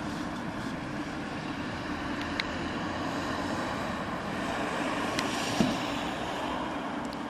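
A burning car's fire makes a steady rushing noise, with two sharp cracks about two and five seconds in and a dull thump just after the second.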